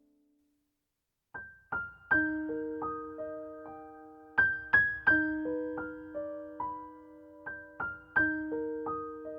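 Background keyboard music: after a second or so of silence, a slow melody of single struck notes begins, each note ringing out and fading.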